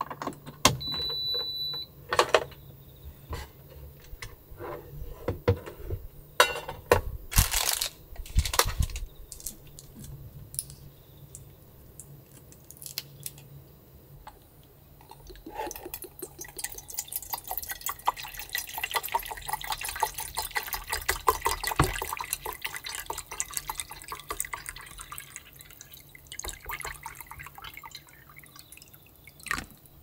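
Water pouring from a large plastic bottle into a small stainless steel pot, a rippling splash that lasts about thirteen seconds in the second half. Before it, a single electronic beep about a second in as the induction hob is plugged in, then scattered clicks and knocks of handling the cord and pot.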